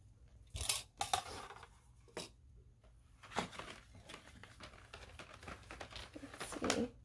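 Paper and a clipboard being handled and turned around on a tabletop stand: about five short rustling, scraping sounds.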